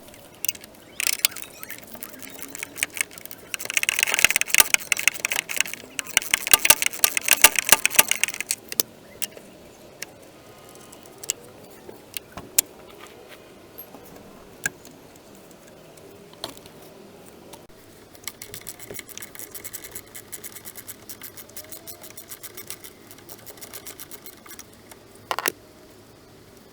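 Metal clatter and clicking of hand tools and small metal parts being handled, dense and loud for a few seconds early on. Later comes a long run of rapid, even clicks, and there is a single sharp knock near the end.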